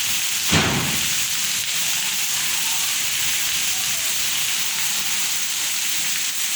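Heavy rain falling in a steady hiss, with one sudden short thump about half a second in.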